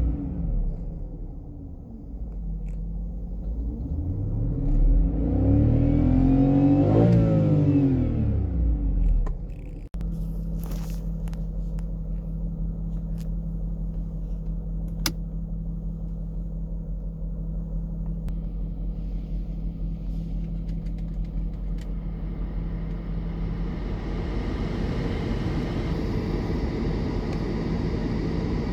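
BMW M62TUB44 4.4-litre V8 engine running. The revs fall, then climb and drop back once, and after an abrupt break it settles into a steady idle. A broader rushing noise builds over the idle near the end.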